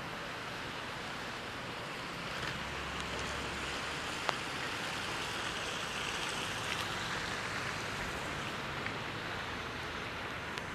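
Snowy city street ambience: a steady hiss of traffic on wet, slushy roads, with a low vehicle engine hum in the middle and a single sharp click about four seconds in.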